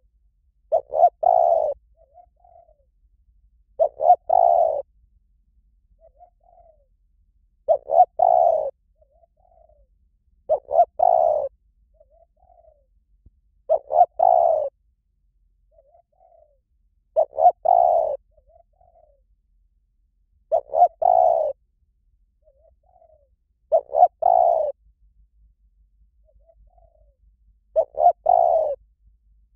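Asian koel calling over and over: nine loud calls about every three to four seconds, each a quick run of two or three notes, with a fainter short note between calls.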